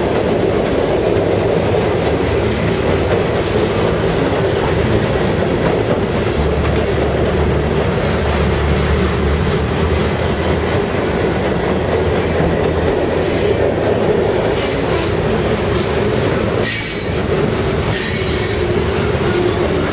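Freight train cars rolling past at speed: a steady rumble and clatter of steel wheels on the rails, with a few short high-pitched wheel squeals near the end.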